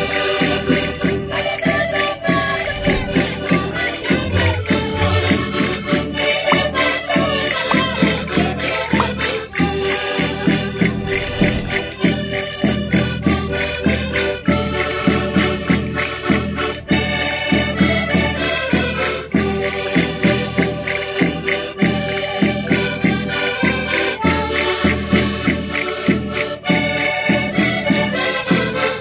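Several Minho concertinas (diatonic button accordions) playing a lively traditional folk tune together, with a steady, even beat.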